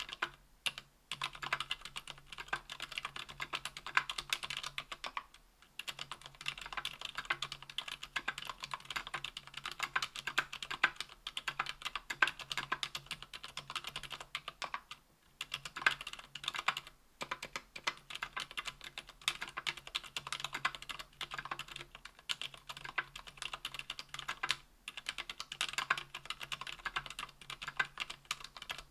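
Steady fast typing on a KBDfans Tofu 60% aluminium keyboard fitted with lubed ZealPC Healios silent linear switches (63.5 g) and GMK keycaps, with short pauses about 5, 15 and 24 seconds in.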